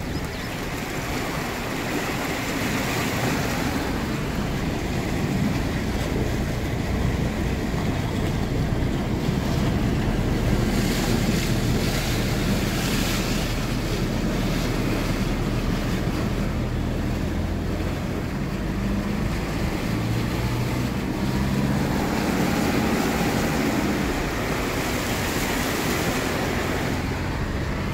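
A vehicle driving slowly through floodwater flowing over a low-level bridge: water rushing and splashing against the tyres and body, with the engine's low hum underneath and some wind on the microphone.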